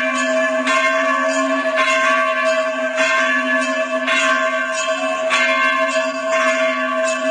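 A bell struck at a steady pace, about once a second, each stroke ringing on into the next over a steady low drone.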